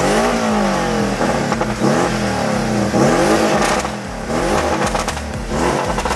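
Porsche sports car engine revved repeatedly while parked, about five blips of the throttle with the pitch rising and falling each time, and a few sharp pops in between.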